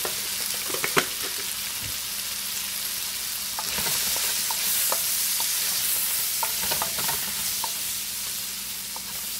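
Chopped onion, capsicum and tomato sizzling in oil in a wok as a wooden spatula stirs in the chilli and curry powder, with short scrapes and taps of the spatula against the pan. The stirring grows a little louder in the middle.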